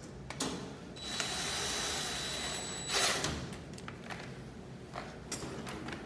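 DeWalt 20V cordless drill with a 5/16 socket bit running for about two seconds with a steady high whine, driving the screw of the safety bracket that clamps a dryer power cord. A louder burst comes about three seconds in, with a few clicks around it.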